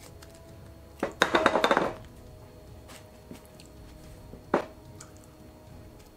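About a second of rapid clinking and scraping against a small bowl of salsa as food is scooped from it, followed a few seconds later by a single sharp knock.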